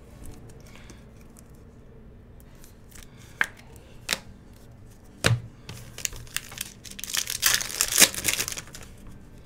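A foil trading-card pack wrapper being torn open, a dense crinkling rip near the end. Before it come a few sharp separate taps, one with a dull thump.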